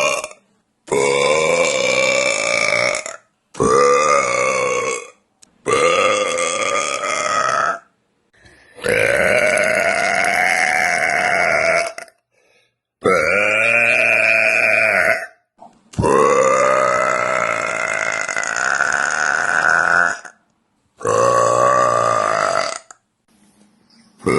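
A woman burping loudly in a run of about eight long, drawn-out burps. Each lasts about one and a half to four seconds and carries a clear pitch, with short silences between them; the longest comes about two-thirds of the way through.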